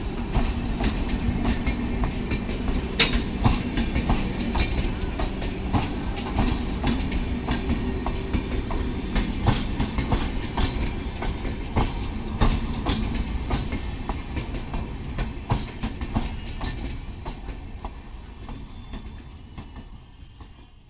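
HO scale model passenger train rolling past, its wheels clicking irregularly over rail joints above a steady rumble and hum. It fades in the last few seconds as the train moves away.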